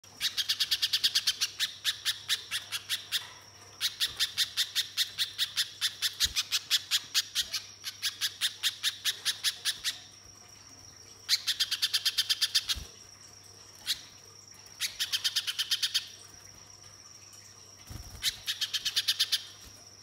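Little spiderhunter (pijantung pisang) singing its song: long runs of rapid, evenly repeated sharp chip notes, about ten a second, broken by short pauses, with one lone note between runs.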